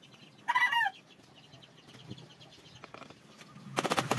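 A chicken gives a short squawk about half a second in. Near the end there is a loud rattling clatter.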